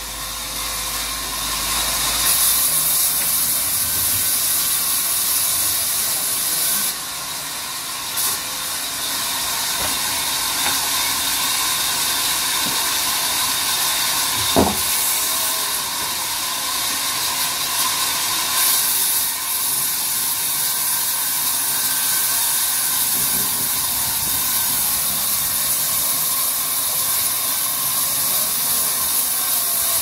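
A large band saw cutting through a mahogany log, a steady, mostly high-pitched noise that grows louder in a couple of stretches. A single knock sounds about halfway through.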